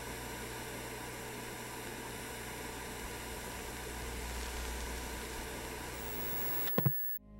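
Steady hiss with a faint hum, the noisy tail of a song recording after the singing has ended. Near the end come two sharp clicks close together, and the hiss cuts off suddenly.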